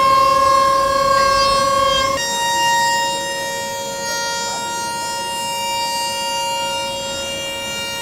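Background music: a held electronic chord that changes to a new chord about two seconds in.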